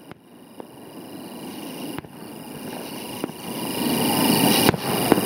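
Outdoor night ambience growing steadily louder: a steady high-pitched trill over a rising low rumble, with a few sharp clicks.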